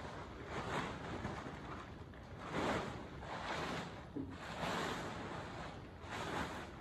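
Blue plastic tarp rustling and crinkling as it is lifted and wrapped around a horse, in about six swells of noise.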